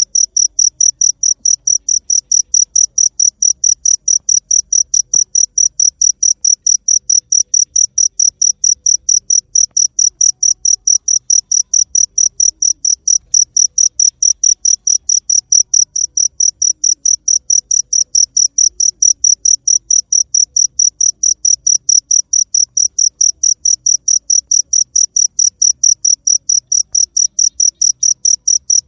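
Cricket chirping steadily in a regular rhythm, about three high-pitched chirps a second.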